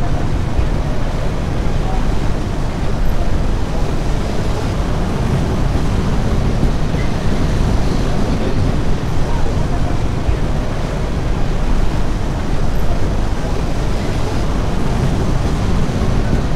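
Vintage Lisbon Tram 28 electric tram running along a city street, heard from aboard: a steady, mostly low running noise of the moving car.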